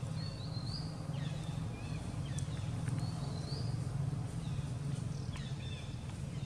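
Short high chirping calls, a few at a time, some rising and some falling in pitch, over a steady low hum.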